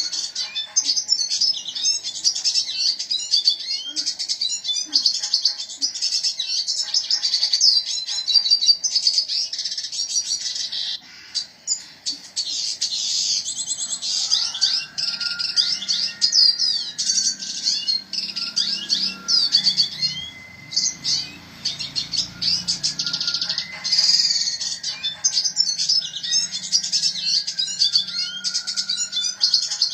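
Red siskin singing non-stop, a rapid, dense stream of high twitters and trills, broken only by a brief lull about eleven seconds in.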